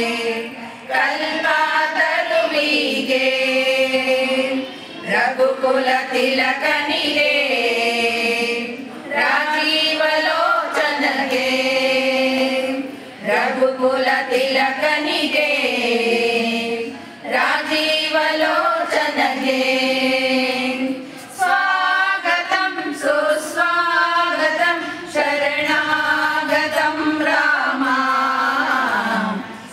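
A group of women singing a Hindu devotional bhajan together without instruments, in phrases of a few seconds each with short breaks between.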